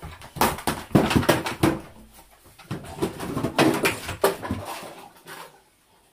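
Rottweiler carrying a red plastic dustpan by its handle in its mouth, the dustpan clattering and knocking in two bursts of rapid knocks, a second or so apart, that fade out near the end.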